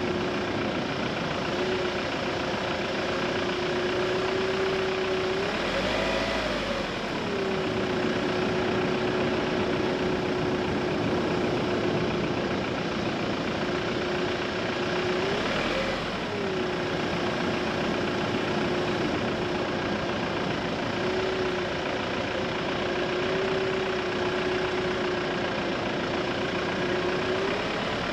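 Car driving along a narrow country lane: steady engine and road noise, with a steady engine hum whose pitch rises and falls back twice, about six seconds in and again about fifteen seconds in.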